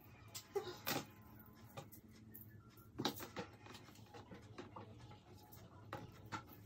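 Quiet handling sounds of a hair straightener in use: a few soft clicks and knocks as the flat iron is clamped and moved along the hair, and one more as it is set down on the counter near the end, over a low steady hum.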